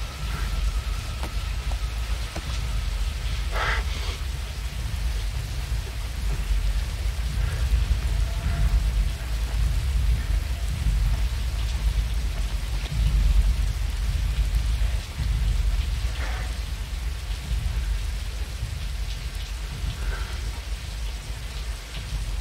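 Heavy rain falling steadily, with a deep low rumble underneath. A few brief sounds stand out over the rain, about 4 seconds in and twice more near the end.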